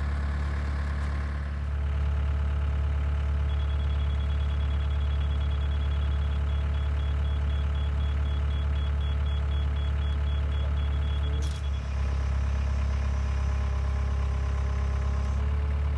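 Engine idling steadily with a low hum. A high electronic tone starts a few seconds in, breaks into rapid short beeps and stops about three-quarters of the way through.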